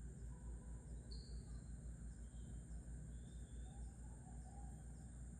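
Faint tropical outdoor ambience: a steady high insect drone over a low rumble, with a short bird chirp about a second in and faint wavering calls near the end.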